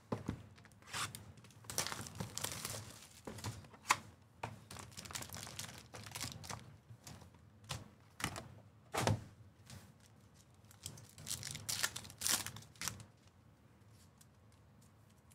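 Cardboard trading-card hobby box and its foil packs being opened by hand: a run of short rips, rustles and crinkles with a few light knocks, dying down near the end.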